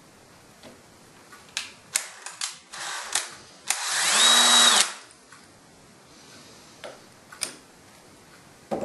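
Cordless drill spinning up, running for about a second and winding down as it drills into the bracket mount in its horizontal position. A few sharp clicks and knocks come just before it.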